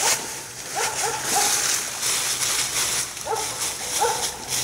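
A dog barking, three quick barks about a second in and several more near the end, over the steady crunch and rustle of footsteps through dry fallen leaves.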